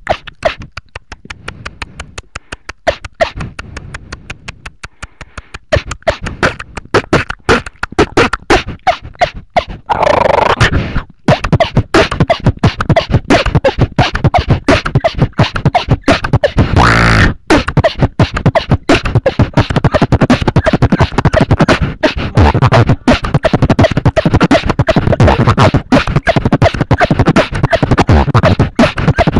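Human beatboxing heard through Ventrilo voice chat: a fast, dense stream of percussive mouth sounds. It is quieter for about the first ten seconds, then louder, with a short break just after the change and a held pitched sound a few seconds later.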